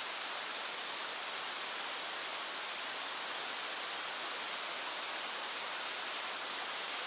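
A small stream flowing: a steady, even rush of water with no breaks or changes.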